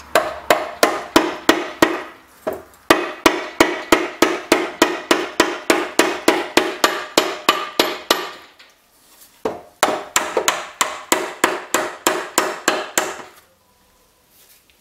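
Hammer blows on metal engine parts, rapid and even at about four a second, in three runs with short pauses between them.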